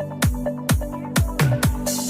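Electronic dance music with a steady four-on-the-floor kick drum at about two beats a second, under a synth bass and short synth notes.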